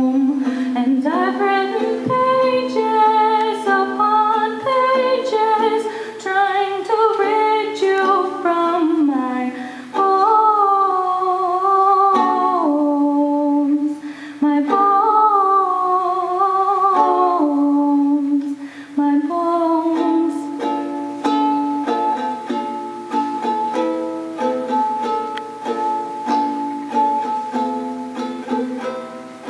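A woman singing a solo song into a microphone, accompanied by a strummed small string instrument. About twenty seconds in the voice stops and the instrument plays on alone.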